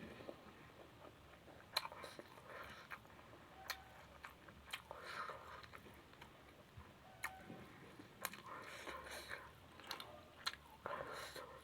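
Close-up chewing of a mouthful of vegetables, faint, with sharp wet mouth clicks about once a second between soft chewing sounds.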